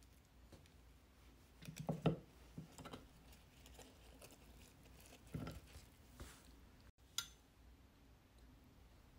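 Faint, soft rustling and clicking of food being handled: cooked lobster meat placed onto a romaine lettuce leaf with tongs and fingers. The louder rustles come about two seconds in and again about five seconds in, with a sharp click about seven seconds in.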